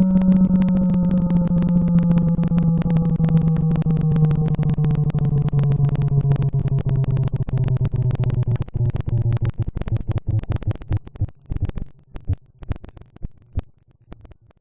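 ACA P-50 siren winding down: its tones slide slowly lower and fade out over about twelve seconds, with a dense crackle running through it.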